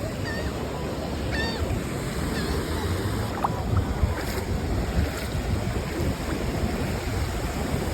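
Sea surf washing steadily at the shoreline, with wind rumbling on the microphone.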